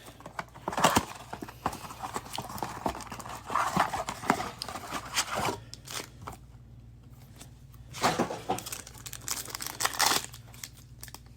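Hands opening a cardboard blaster box of trading cards and handling its packs: irregular taps and clicks with short bursts of crinkling packaging, and a quieter lull partway through.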